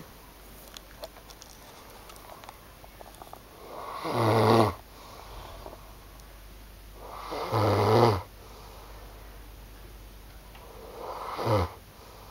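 Loud snoring: three snores about three and a half seconds apart, each swelling over about a second and then cutting off sharply, the last one shorter.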